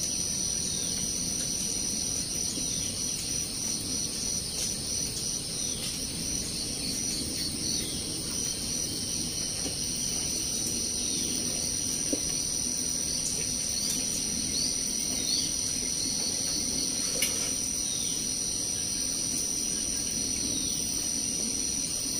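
Steady high-pitched insect trilling with a fast pulsing chirp beneath it, and short falling chirps every second or two. A couple of sharp clinks, spoons against bowls, about midway.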